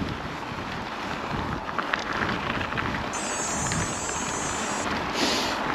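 Wind buffeting the microphone over the low rumble of a mountain bike rolling on a trail, with scattered knocks. A faint, thin, high chirping tone sounds for under two seconds about three seconds in, and a short hiss comes near the end.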